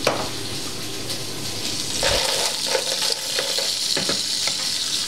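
Chopped garlic frying in hot olive oil in a pan: a steady sizzling hiss that grows louder and fuller about two seconds in, with a few light clicks.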